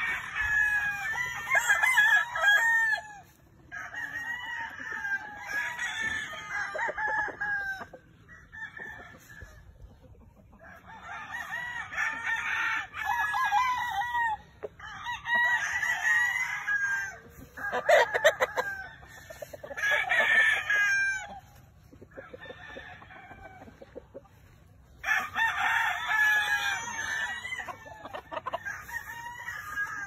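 Gamefowl roosters crowing one after another, their calls overlapping, in bursts of a few seconds with short lulls between.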